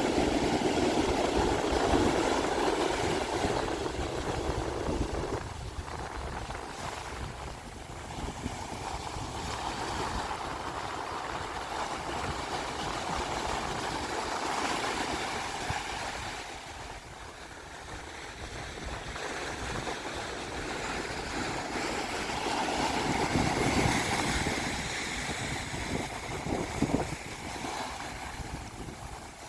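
Pacific Ocean surf washing onto a beach, the noise swelling and ebbing as each wave comes in and draws back, with wind. A few sharper crashes come near the end.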